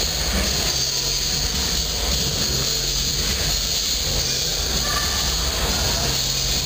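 Steady low rumble and hiss of hall ambience and recording noise, with no distinct impacts or other events.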